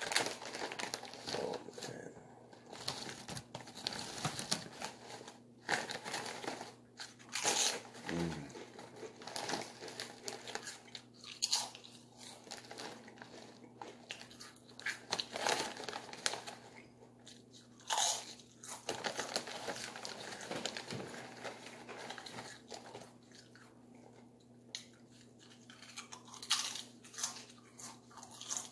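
A person eating close to the microphone: irregular chewing, biting and crunching sounds with wet mouth clicks. A faint steady hum runs underneath.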